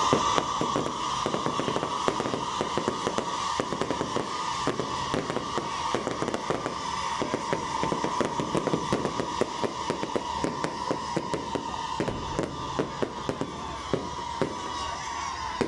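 Aerial fireworks going off in quick succession: a dense, continuous run of crackling pops and bangs, several a second, over a steady high tone.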